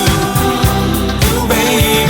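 Background music: a song with a singer over a steady drum beat and bass.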